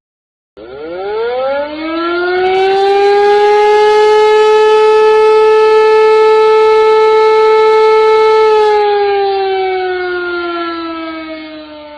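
Siren winding up in pitch over about two seconds, holding one steady wail, then slowly winding down in pitch near the end.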